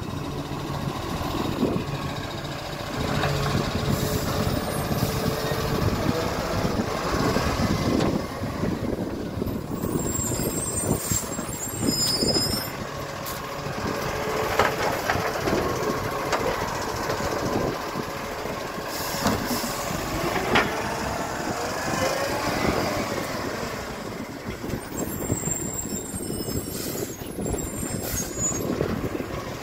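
Automated side-loader garbage truck working: the diesel engine runs while the hydraulic lifting arm raises wheelie bins and tips them into the hopper, with clunks and shifting mechanical whines as it works.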